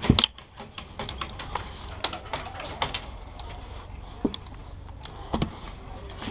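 Airsoft guns firing scattered single shots: irregular sharp clicks and knocks, the loudest right at the start and about two seconds in.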